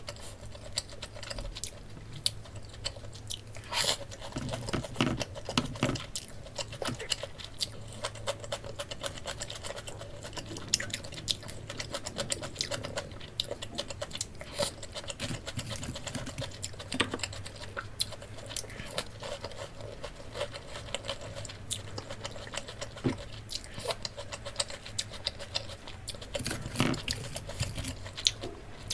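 Crunching and chewing of breaded, deep-fried pork cutlet: many irregular crisp crackles and clicks.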